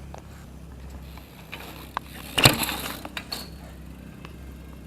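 A few light knocks and one louder clatter about two and a half seconds in, over a low steady hum.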